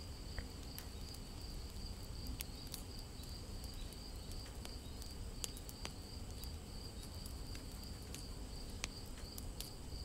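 Quiet background hiss with a faint steady high-pitched whine and a few soft, scattered clicks.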